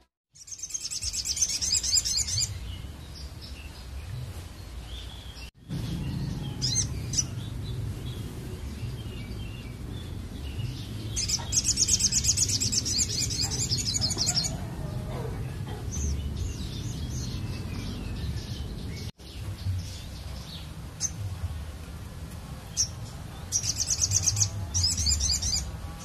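Caged sogon songbird in full song: rapid, high-pitched chattering phrases of about two to three seconds each, three times, with short single chirps in between. A steady low background rumble runs underneath.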